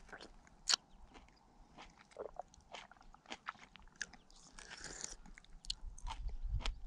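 A person biting into a ripe wild plum and chewing it: scattered soft clicks and smacks, the sharpest about a second in.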